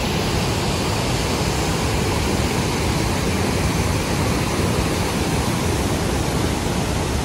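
Fast mountain stream in spate, white water pouring over boulders: a loud, steady rush of water.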